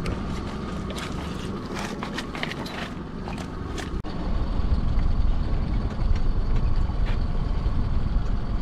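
Small boat's engine idling on the water, a steady low rumble with a faint steady whine, under scattered clicks and knocks of crabs being pulled from a rope-meshed crab pot. After about four seconds the knocks stop and the low rumble gets louder.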